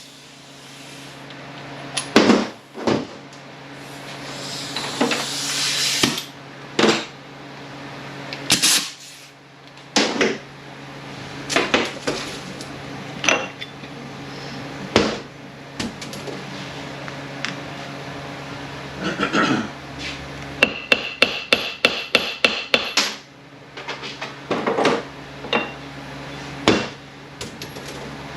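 Hammer blows and hand tools knocking on metal during an automatic transmission teardown: scattered single knocks, then a quick run of about ten evenly spaced taps.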